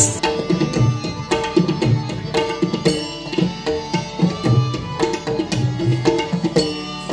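Live Hindustani classical music: tabla strokes under a plucked string instrument playing short, quick notes.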